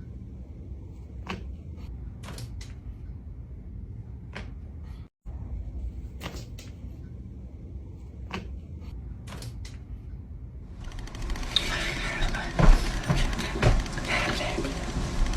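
Joints cracking: single sharp pops, one every second or two. Near the end a steady hiss comes in, with a few heavier thuds among the pops.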